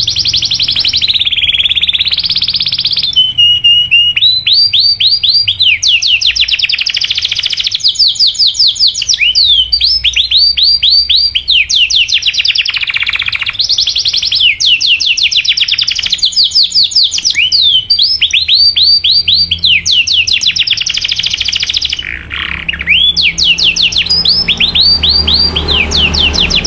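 Domestic canary singing: long rolls of fast, evenly repeated sweeping 'cuit cuit' chirps, high-pitched and loud, with a brief break about 22 seconds in.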